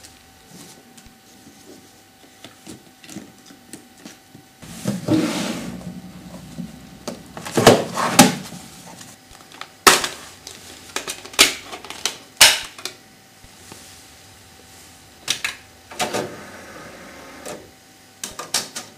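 Plastic DVD cases being handled: a string of sharp clicks, knocks and rattles as a case is pulled from a rack and snapped open, and a disc is set into a DVD player's open tray near the end.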